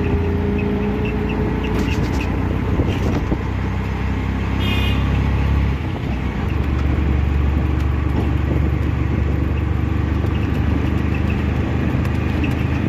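Auto rickshaw's small engine running as it drives, heard from inside its open cabin along with road and wind noise. The engine note dips briefly about six seconds in, then picks up again, and a short high beep sounds just before that.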